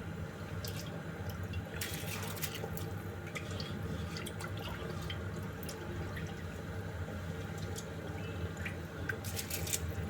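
A pot of salted water at the boil, bubbling and splashing as washed basmati rice goes into it, with a steady low hum underneath. Sharp clicks and ticks come in clusters about two seconds in and near the end.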